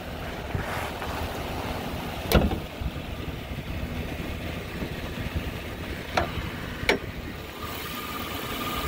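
2010 GMC Sierra pickup's engine idling steadily and smoothly, without ticks or knocks. Three sharp clicks sound as the hood is unlatched and raised, and a faint steady whine comes in near the end once the engine bay is open.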